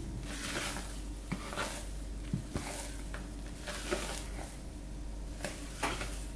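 Spatula folding whipped egg whites into cocoa cake batter in a plastic bowl: soft, irregular squishing of the wet batter with light scrapes and taps against the bowl.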